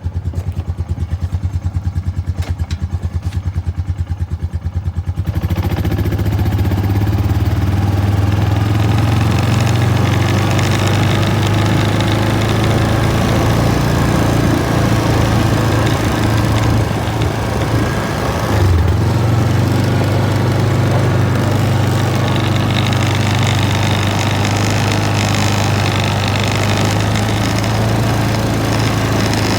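1999 Honda Foreman 400 ATV's single-cylinder four-stroke engine idling with an even beat, then getting louder as it pulls away about five seconds in and running under steady throttle while the ATV is ridden, with a brief dip in the engine note a little past halfway.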